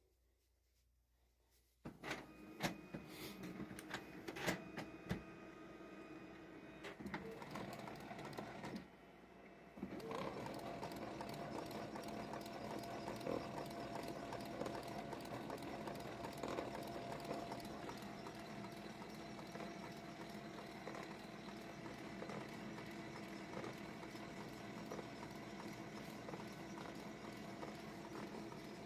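Laser printer mechanism running: a dense run of clicks over a steady hum. It starts about two seconds in, drops out for a moment near nine seconds, then runs on steadily.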